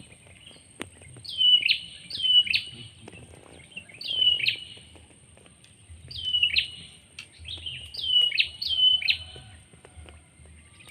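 A bird calling repeatedly: about six loud two-note phrases, each note a quick downward slide, coming at uneven intervals of one to two seconds.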